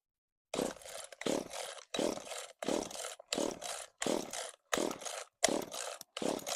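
Echo CS-3450 two-stroke chainsaw's recoil starter being pulled about nine times in a steady rhythm, each pull a short whirring rasp as the engine turns over. This is the first start attempt after a carburetor replacement, and the engine has not yet caught.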